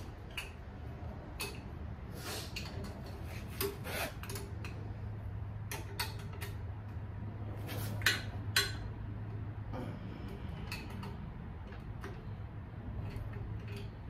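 Metal hand tools clinking and ticking against a diesel engine's fittings as the injector lines are cracked open, with two louder metallic clicks about eight seconds in. A steady low hum runs underneath from about four seconds in.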